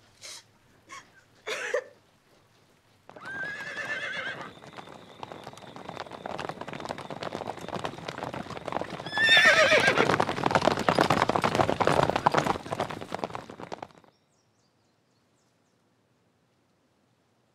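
Horses' hooves beating rapidly as they are ridden, with a horse whinnying about three seconds in and again, louder, about nine seconds in. The hoofbeats cut off suddenly near the end.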